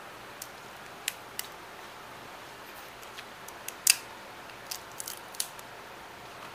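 Shell of a cooked mud crab being cracked and pulled apart by hand: a string of short, sharp cracks and snaps, the loudest about four seconds in, over a steady faint hiss.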